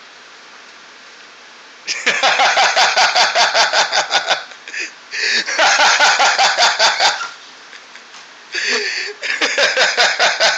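A person laughing hard in three bouts of rapid 'ha-ha' pulses, starting about two seconds in, with short pauses between.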